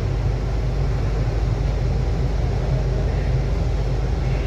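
Steady low engine rumble at a ferry berth, a constant drone with no distinct events.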